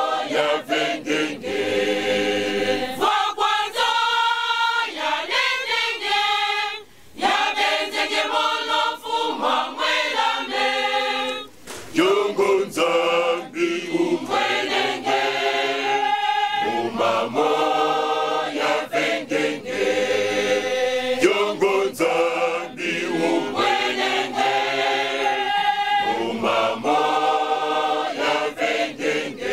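Large mixed choir of men's and women's voices singing a cappella in harmony, broken by two short pauses between phrases, about 7 and 11.5 seconds in.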